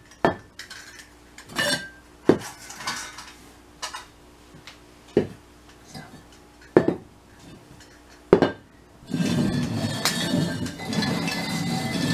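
Upturned terracotta flower pots being set down on a hard floor, several sharp clay knocks a second or more apart. About nine seconds in the pots are shuffled around, a continuous scraping rattle of clay sliding on the floor.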